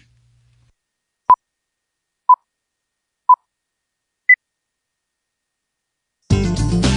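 Four short electronic beeps about a second apart, the first three at one pitch and the fourth higher, in the pattern of a countdown to a start; music begins near the end.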